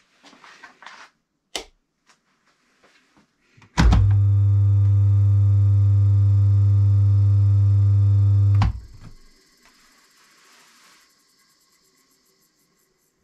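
A few light clicks, then a Brook Gryphon split-phase induction motor switches on and runs with a loud, steady mains hum for about five seconds. It is started through a contactor and time-delay relay that replace its broken centrifugal switch. It is switched off with a click near two-thirds of the way through and runs down over a couple of seconds.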